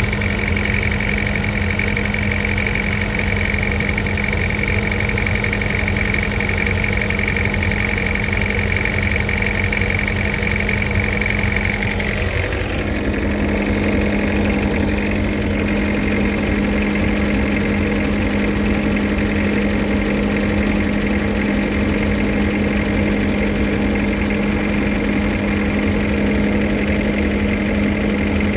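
Van engine idling steadily at about 1,000 rpm, a constant hum with no change in speed. The sound shifts slightly about twelve seconds in, as it is heard close up in the open engine bay.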